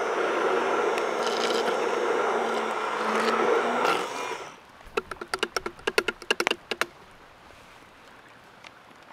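A loud, steady rushing noise runs for about the first four and a half seconds, then stops. After it, a spoon clinks and scrapes quickly against a metal cooking pot, a rapid run of sharp clicks with a short ring.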